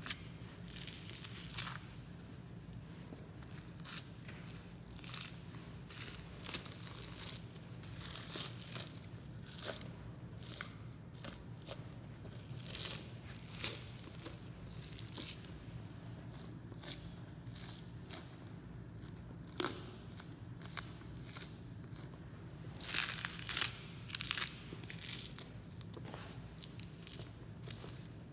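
Knife slicing through fat and membrane as the inside skirt is separated and peeled off a Kuroge Wagyu beef outside plate: irregular short scraping, tearing and crackling strokes, several in quick clusters, over a steady low hum.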